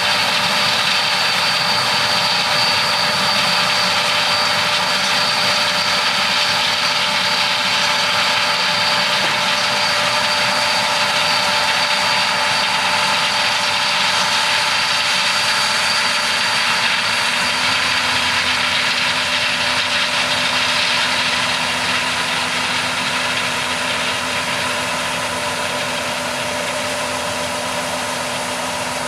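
John Deere S680 combine harvester running while harvesting corn: a steady, loud machine drone with a high, even whine over it, easing off slightly after about twenty seconds.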